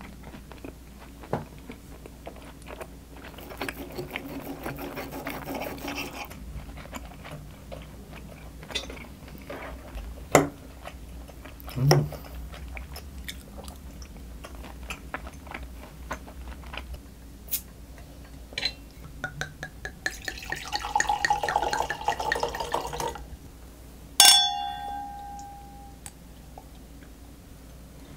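Red wine poured from a bottle into a wine glass for about three seconds, followed by a single sharp clink of glass that rings on briefly. Scattered clicks of cutlery on plates come before it.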